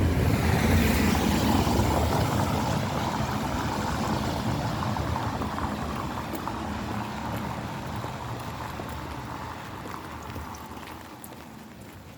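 A car driving past on a wet road, its tyre hiss loudest about a second in and then fading steadily as it moves away.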